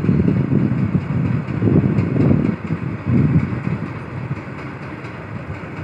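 Freight train of open wagons rolling past on the track, a steady low rumble that surges unevenly, partly wind buffeting the microphone.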